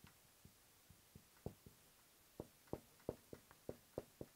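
Faint irregular taps and short strokes of a dry-erase marker on a whiteboard, about a dozen small clicks, more of them in the second half.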